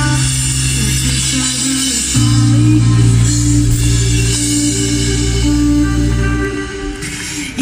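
Live pop-rock band playing an instrumental passage without singing: sustained low keyboard chords that change about two seconds in and thin out near the end.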